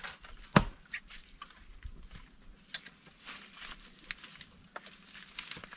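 Scattered light crackles and clicks of dry bamboo leaves and twigs underfoot, with one sharp snap about half a second in.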